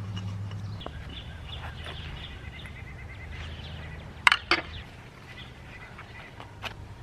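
Hand tools working on chainsaw parts: a run of faint high squeaks, then two sharp metallic clicks in quick succession just past the middle and a lighter click near the end, over a steady low hum.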